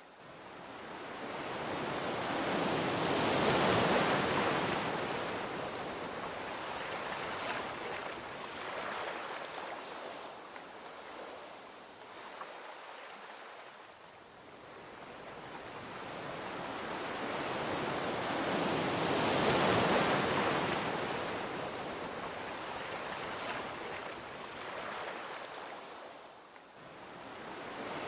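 Gentle ocean waves washing onto a beach: two slow swells of surf, each building over several seconds and fading away, with a third rising near the end.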